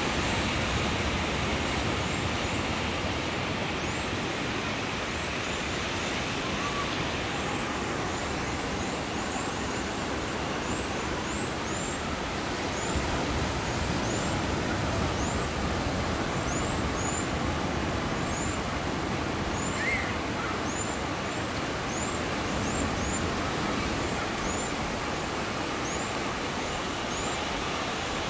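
Surf breaking on a sandy beach, a steady rushing wash of waves, with short high chirps repeating irregularly through it.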